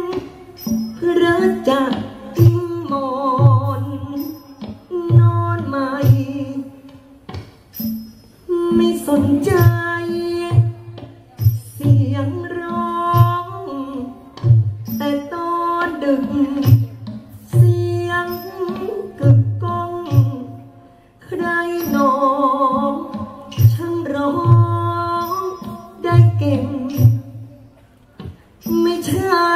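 Thai likay singing: one voice through a microphone, a slow melodic line with long, wavering held notes, over musical accompaniment with a low repeated beat.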